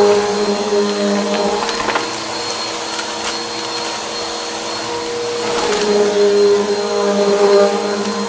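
Bagless upright vacuum cleaner running steadily with an even motor hum as it is pushed over a rug and a hardwood floor. A few sharp ticks sound as crunchy debris is sucked up into the bin.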